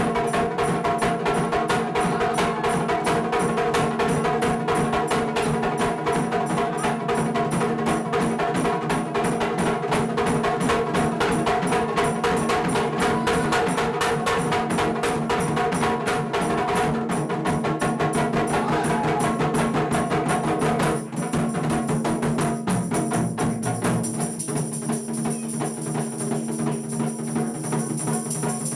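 Japanese taiko drum ensemble playing a fast, continuous rhythm, with held pitched notes underneath. About 21 seconds in, the low end drops away and the playing thins.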